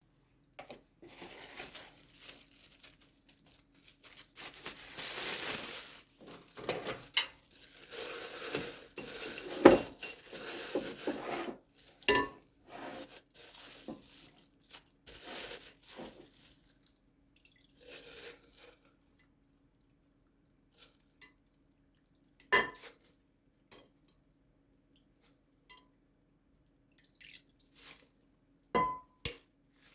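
Kitchen dishes and utensils clattering and clinking as containers are handled, busy through the first half and then sparse single clinks that ring briefly. A faint steady hum sits underneath.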